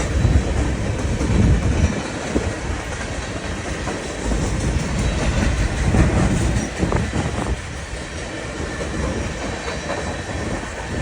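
Freight cars of a CSX manifest train rolling past on the rails, with wheel noise rising and falling as the cars go by.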